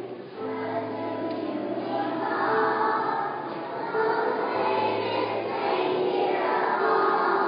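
A large choir of young elementary-school children singing together, holding long notes over a steady low note.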